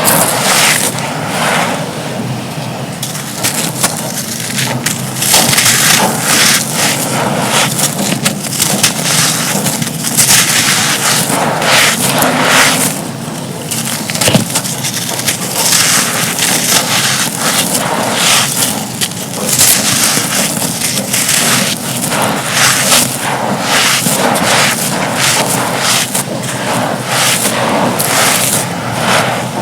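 Both hands crumbling soft, dusty, gritty dry cups into dry powder: a dense, continuous run of gritty crunching and crackling that swells and eases every few seconds.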